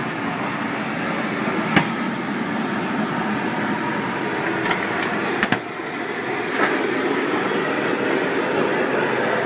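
Steady din of a busy night hawker-stall street, a dense mix of stall and street noise with no clear voice on top, broken by a handful of short sharp clacks.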